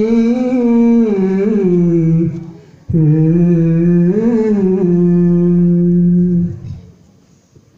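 A man singing a devotional chant in long held, wavering notes: two phrases with a short break about two and a half seconds in, the singing dying away near the end. No drumming is heard.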